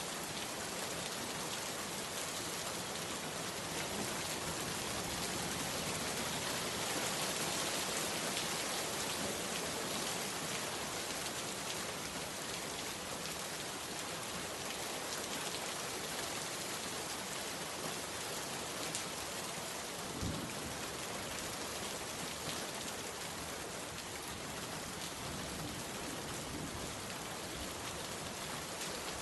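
Rain falling steadily, an even hiss of drops on surfaces, with one brief low thump about two-thirds of the way through.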